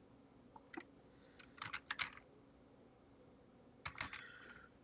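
Computer keyboard typing, faint, in three short runs of keystrokes: one under a second in, a quicker run around two seconds, and one near the end.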